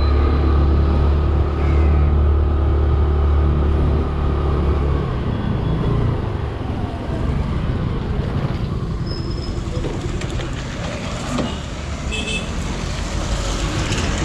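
Motorbike engine running steadily as the bike rolls along a wet street; its low hum drops away about five seconds in as the bike slows to a stop, leaving the general noise of street traffic.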